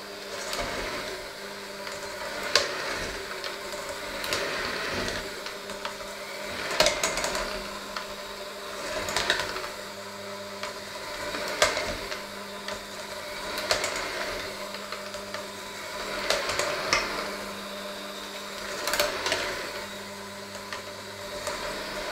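Electric hand mixer running with its beaters working through thick dough in a stainless steel bowl: a steady motor hum, swelling about every two seconds, with an occasional sharp clink of metal on the bowl.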